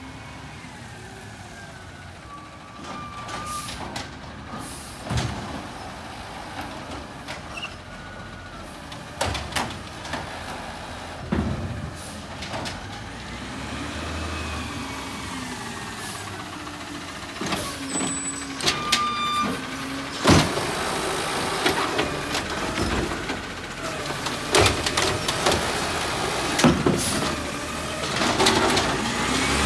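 Automated side-loading garbage truck drives up and stops alongside the curb, getting louder as it comes closer. Its engine note rises and falls, with air-brake hisses and repeated clanks and knocks, most of them in the second half.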